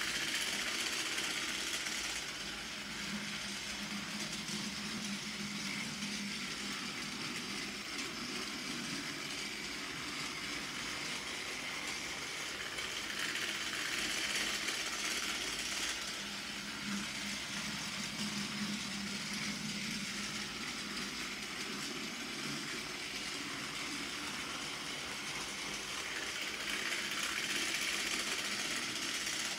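Plarail TS-23 Ashima battery toy train running laps of plastic track: a steady small-motor whir with the wheels rattling on the rails. The sound swells about every 14 seconds as the train comes round close by.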